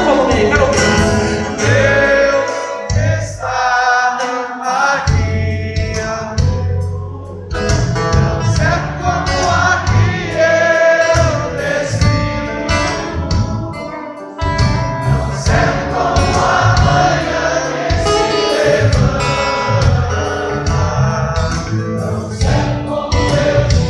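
Live gospel worship music: a man sings a Portuguese worship song over acoustic guitar, electric guitar and a steady low beat, with many voices singing along.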